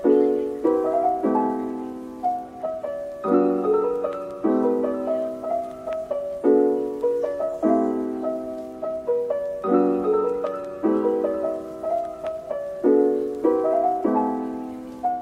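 Background piano music: gentle chords and melody notes, each struck and fading away, in an even pattern.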